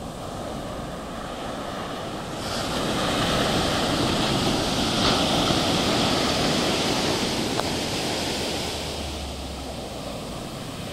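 Ocean surf breaking on a sandy beach: the wash of a wave swells about two and a half seconds in and slowly fades as the water runs up the sand.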